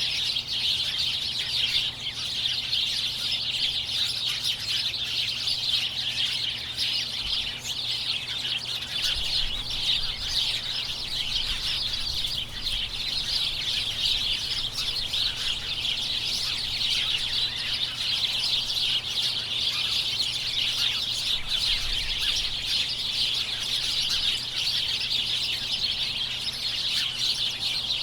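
Large flock of small birds chirping together, a dense continuous chatter of many overlapping high chirps and tweets at a steady level.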